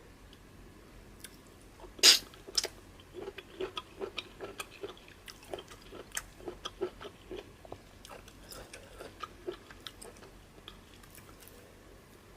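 Close-up mouth sounds of a man eating: one loud, crunchy bite about two seconds in, then steady chewing with quick wet clicks, a few a second, that fade out near the end.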